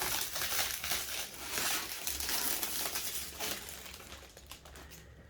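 Plastic packaging crinkling and rustling as it is handled, fading away near the end.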